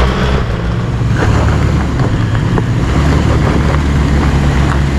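Four-wheel-drive engine running steadily with a low, even drone, with wind noise over it.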